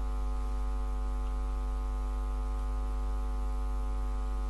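Steady electrical mains hum with a stack of evenly spaced overtones, picked up in the microphone line of a voice recording.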